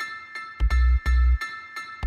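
Background music: a bell-like melody struck in a quick, even rhythm over deep bass notes.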